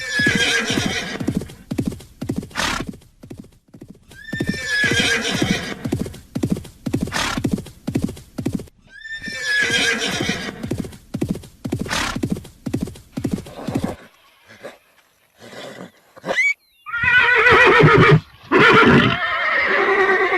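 Horses whinnying over a steady clip-clop of hooves, one whinny about every four to five seconds. About two-thirds through the hoofbeats stop, and louder, longer neighing follows to the end.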